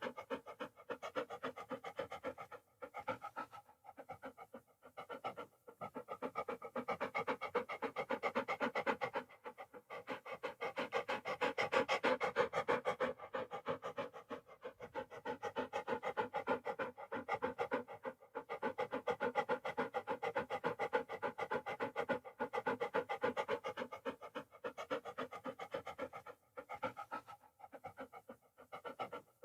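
A dog panting rapidly and evenly, in long runs of quick breaths broken by a few brief pauses.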